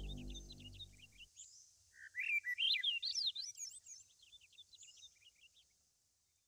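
A songbird singing a rapid, high, twittering song with a louder, varied phrase about two seconds in, fading out near the end. The tail of a piece of music dies away in the first second.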